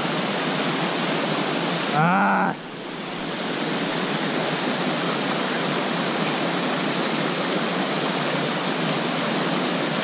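Steady rushing of a small waterfall pouring into a plunge pool, with the stream running over rocks below it. About two seconds in there is a brief voice-like exclamation, then the water sound dips suddenly and builds back up within a second or two.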